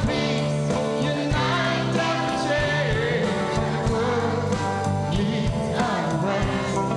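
A pop song: a male lead singer with a children's choir, backed by a band with electric guitar and keyboard.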